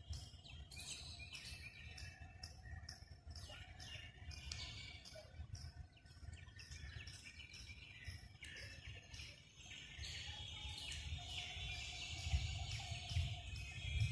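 Birds chirping repeatedly over a steady low rumble of outdoor noise, a little louder near the end.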